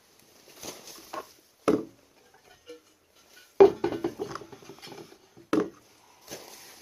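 Hard knocks and clatter of console parts and hardware being handled and fitted: three sharp knocks, the loudest about three and a half seconds in, followed by a second or so of small rattling clicks.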